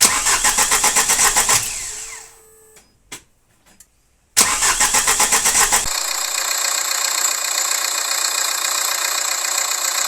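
Opel Astra 1.7 X17DTL diesel engine being started after its injectors were rebuilt with new nozzles. The starter cranks for over a second without the engine catching, and it winds down. A few seconds later it cranks again, fires, and settles into a steady idle that is called "working great".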